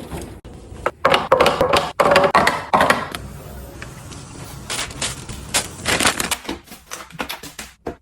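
Food packaging and containers being handled and set down while restocking a fridge: crinkling and rustling for about two seconds from a second in, then a run of quick clicks and taps.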